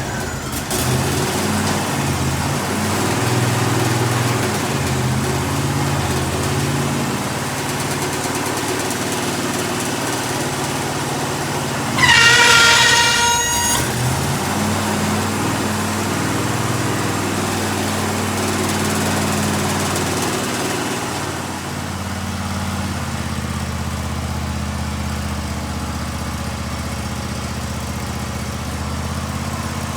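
Sawmill engine running steadily. About twelve seconds in, a loud high-pitched whine with a slight downward slide lasts a second or two.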